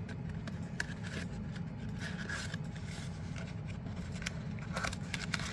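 Fidget spinner packaging being handled and searched through: soft rubbing and rustling with a few small clicks over a steady low hum.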